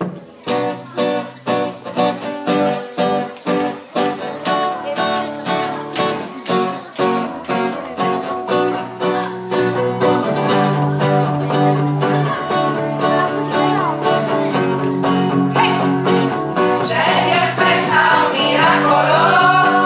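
Live band music: guitars strummed in a steady rhythm as a song's introduction, with a group of voices starting to sing near the end.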